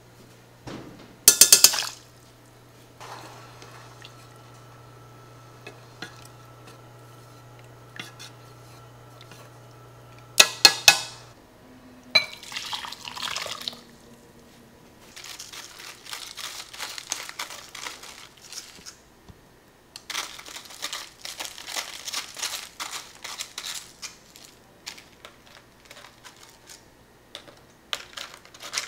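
Kitchen sounds: a metal saucepan clanks twice on an induction hob, which gives a steady low hum until about eleven seconds in. Then liquid is poured into a bowl, followed by long stretches of dense crackling and rustling as toppings are added to a bowl of udon.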